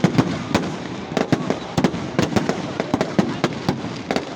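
Fireworks popping and crackling, many sharp irregular bangs a second over a steady hiss.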